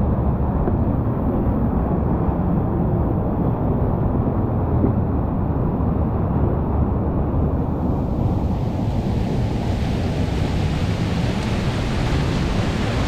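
Whitewater rapids rushing, a steady heavy noise that turns brighter and hissier about two thirds of the way through.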